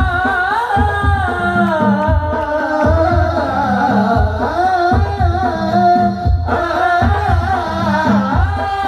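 Men singing a sholawat (Islamic devotional song) together into microphones through a sound system, one voice carrying a long, bending melody, over a steady low drum beat.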